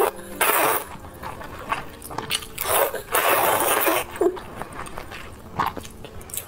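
A person slurping noodles: a short loud slurp about half a second in, a longer one lasting about a second midway, and smaller mouth clicks and chewing between.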